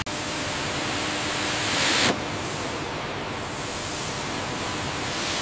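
Steady hissing machine noise of a robotic drill spindle working a metal panel under coolant spray. It swells about two seconds in, then drops off abruptly.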